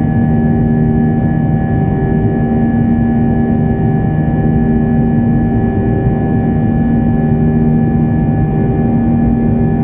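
Airbus A321 jet engines at climb power after takeoff, heard inside the cabin beside the wing: a steady, loud rushing noise with a low drone of several steady tones.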